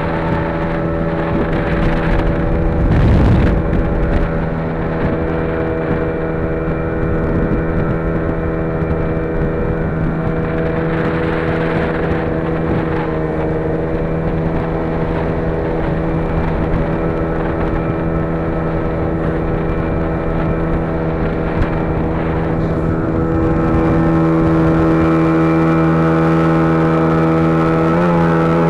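A vehicle's engine running at steady revs while driving. There is a knock about three seconds in, and the engine gets a little louder about 24 seconds in.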